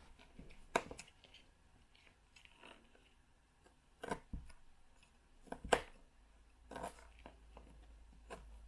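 A small kitchen knife slicing satin pothos (Scindapsus pictus) stems into node cuttings against a cutting mat. It gives a few sharp, crisp cuts and taps, several of them in quick pairs.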